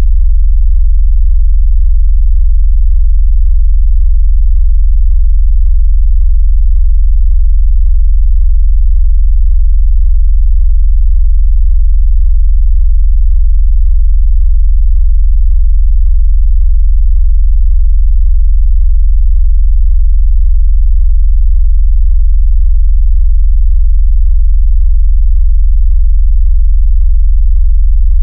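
Loud, steady, very deep synthesized sine-wave bass tone with a faint fast even pulsing, made to set a phone or speaker vibrating. It serves as a bass test and a tone for pushing water out of a phone speaker.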